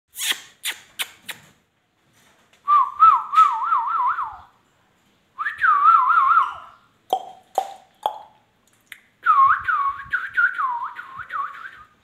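Indian ringneck parakeet whistling: three warbling whistled phrases with a quick wavering pitch, the last the longest. Sharp clicks come at the start and again between the second and third phrase.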